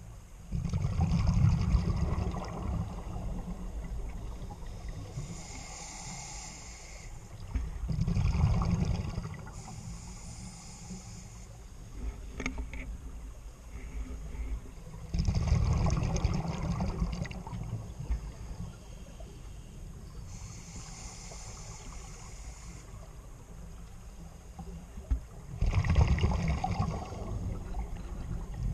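Scuba diver's breathing through a regulator, heard underwater: a thin hiss on each inhalation and a burst of exhaled bubbles rumbling and gurgling for two to three seconds, four exhalations in all at a slow, relaxed pace.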